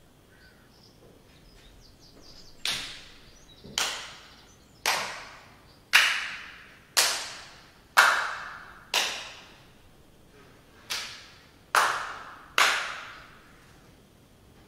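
A series of about ten sharp hits, roughly one a second, each ringing out in a fading, echoing tail. They start a few seconds in, pause briefly once, and stop a couple of seconds before the end.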